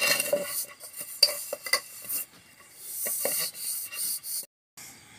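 Fingers rubbing oil around the inside of an aluminium cake tin: an irregular swishing and scraping of skin on metal, with a few light knocks of the tin.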